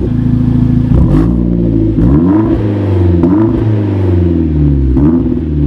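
2012 Hyundai Genesis Coupe 2.0T's turbocharged four-cylinder running through a new J2 Engineering stainless quad-tip catback exhaust. It idles at first, then is revved up and let fall back several times from about a second in.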